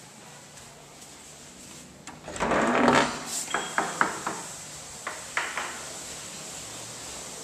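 A wooden door being opened and handled: a loud noisy scrape about two seconds in, then a string of sharp clicks and knocks.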